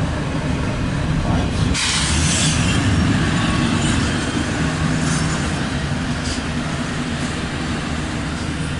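The cars of an intermodal freight train rolling past at close range: a steady rumble of steel wheels on rail, with a rushing noise that grows about two seconds in.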